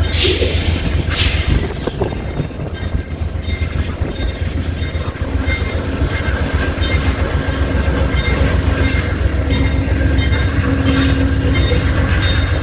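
Amtrak passenger train rolling by: a steady, heavy low rumble with sharp wheel clicks over rail joints at the start and about a second in.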